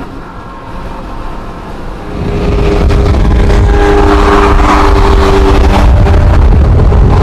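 Lamborghini Murciélago LP640's V12, breathing through a catless, straight-piped Fi exhaust. It runs moderately, then about two seconds in the throttle opens and it turns much louder, a heavy low rumble held at steady revs, heard in a tunnel.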